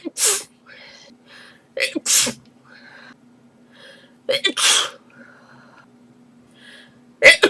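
A girl sneezing in a rapid fit: four sneezes about two and a half seconds apart, each a sharp catch followed by a loud hissing burst. Short breaths come in between.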